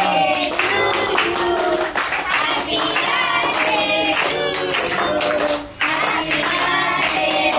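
A group of voices, children among them, singing together while clapping their hands.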